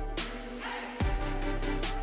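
Background music with a steady drum beat. The bass and beat drop out briefly and come back about a second in.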